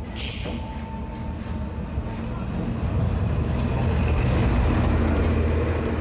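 An engine running steadily with a low, even hum, growing louder about three seconds in.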